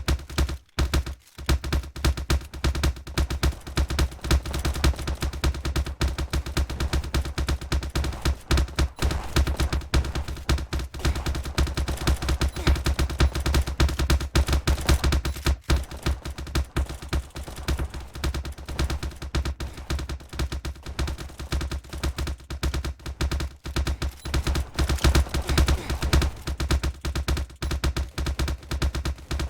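A continuous, dense crackle of sharp pops, fast and irregular like rapid clapping, over a steady low rumble.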